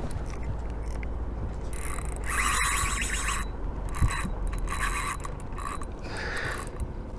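Spinning reel being cranked under load while reeling in a hooked fish, its gears whirring in several spells, the longest about two seconds in. A low rumble runs underneath.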